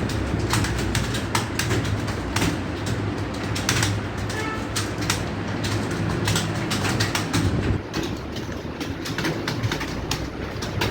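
Many computer keyboards clattering at once, a dense irregular patter of key clicks from a room of people typing, over a steady low hum.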